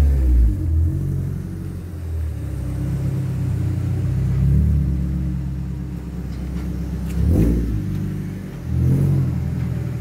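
Suzuki Swift's engine, breathing through an aftermarket full-system exhaust, running at low speed with a steady low exhaust note as the car manoeuvres. The engine is revved briefly twice near the end.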